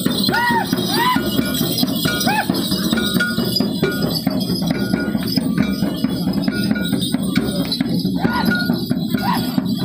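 Percussion music for a Minahasan Kabasaran war dance: steady drumming with ringing metallic strokes. Several short rising-and-falling calls sound over it, a few in the first seconds and again near the end.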